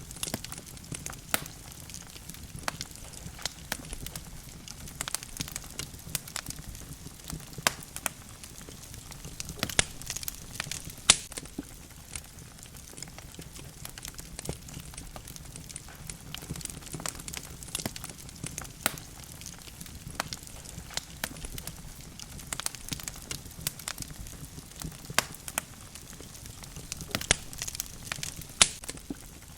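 Wood logs burning in a fireplace: a steady low rumble of the flames with irregular sharp crackles and pops, a few of them louder than the rest.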